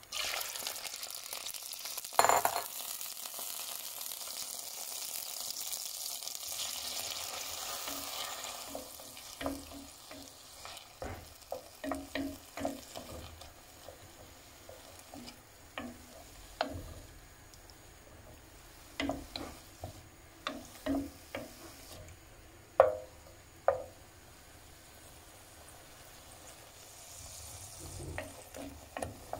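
Mushrooms frying in hot oil with garlic: a loud sizzle at the start that eases after about eight seconds, with a sharp knock about two seconds in. After that, a wooden spoon scrapes and taps against the pan as it stirs them.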